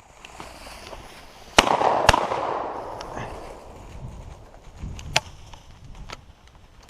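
Two sharp cracks about half a second apart, then a second or so of rustling and a few more snaps: a bird dog crashing through brush after a downed chukar.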